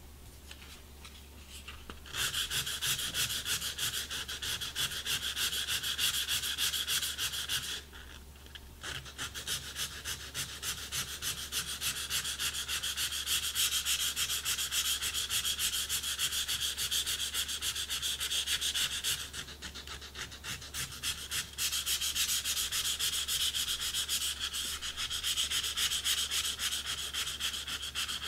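Sandpaper pressed down by the fingers and rubbed in quick back-and-forth strokes over the tip of a cane clarinet reed on a glass plate: a steady rasping scratch as the tip is sanded thin in the last shaping step. The scratching starts about two seconds in and eases off briefly twice, around eight and around twenty seconds in.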